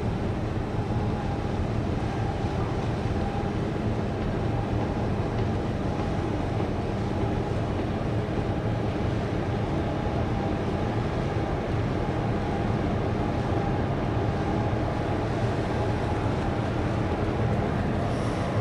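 Container ship OOCL Busan under way at close range: a steady low rumble from its engines, with a constant hum over it.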